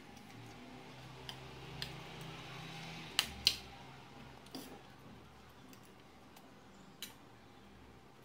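Metal spoon clicking and scraping against a ceramic plate as rice is scooped up: about six sharp clicks, the two loudest close together a little past three seconds in.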